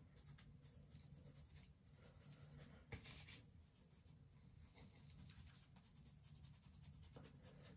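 Faint, scratchy rustling of fingers rubbing curl product through curly hair, with one slightly louder tick about three seconds in.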